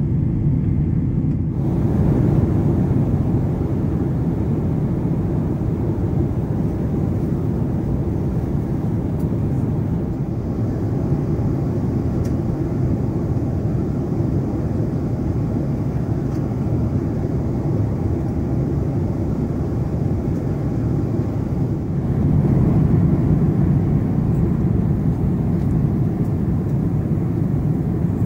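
Steady low rumble of a Boeing 767-400ER airliner heard from on board. The sound shifts abruptly a moment after the start and again about three-quarters of the way through.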